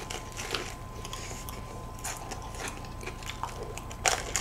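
Close-miked eating of a Lotte World Cone tiramisu ice cream cone: scattered small crisp crackles as the wafer cone is bitten and chewed, with a louder crunching bite about four seconds in.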